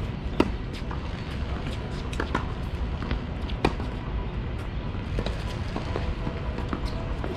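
Tennis balls struck by rackets on a hard court: two sharp loud hits about three seconds apart, with fainter ball impacts between, over a steady low rumble.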